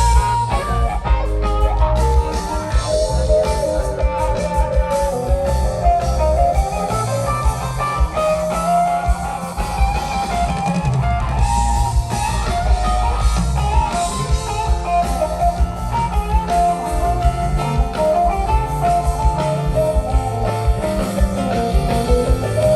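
Rock band jamming live: electric guitar lines over bass and drum kit, played loud.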